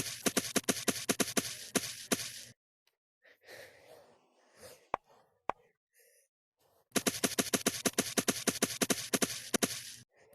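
A rapid run of short, pitched pulses, about nine a second, in two bursts with a quieter break holding two sharp clicks between them.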